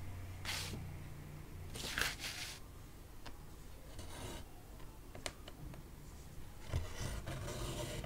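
Embroidery thread being pulled through cross-stitch fabric in several short hissing pulls, with a few light clicks, over a low steady hum.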